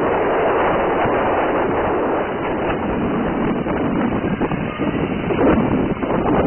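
Hexacopter's six propellers running steadily as it hovers low, a dense whirring rush mixed with wind buffeting the microphone.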